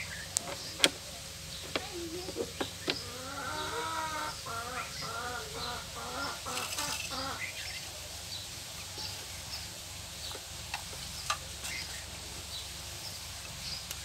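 Small birds chirping in the background, with a louder wavering bird call repeated for about three seconds near the middle. A few sharp clicks come from welding cables and clamps being handled, mostly in the first three seconds and once more later.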